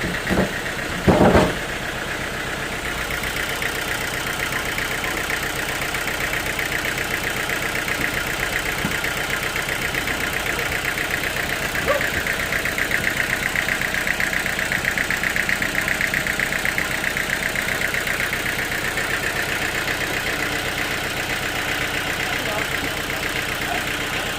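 Sawmill machinery running steadily with a fast, even buzz, and two sharp knocks in the first second and a half.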